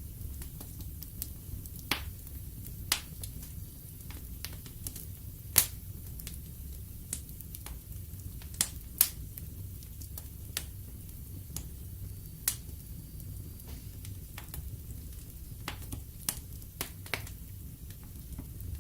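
Wood fire burning in a fireplace, the logs crackling with irregular sharp pops, the loudest about six and nine seconds in, over a steady low rumble of the flames.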